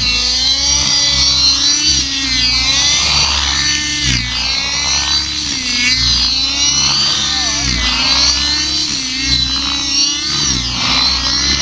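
RC Compass Knight model helicopter flying aerobatics: its engine and rotor whine run continuously, the pitch dipping and rising again every second or two as it is thrown about and passes by.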